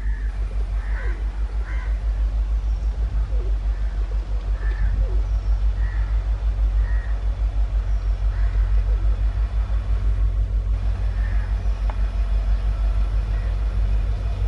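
Diesel train engine running with a deep, steady rumble that pulses about four times a second as it approaches, with scattered bird calls over it.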